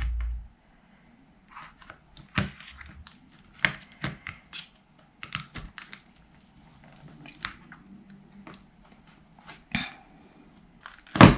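Scattered light plastic clicks and taps of a phone being handled and set into a clear plastic alignment tray, with a dull bump at the start and a louder click near the end.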